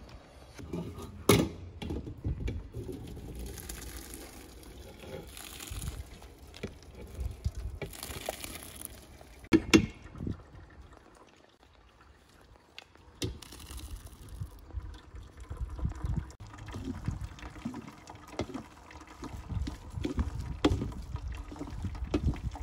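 Hot pomegranate juice and boiled arils being poured from a cooking pot into a stainless steel colander, the juice splashing and draining through into the pot below, with a couple of sharp knocks of metal cookware. Near the end a wooden spoon stirs and scrapes the arils in the colander to press out more juice.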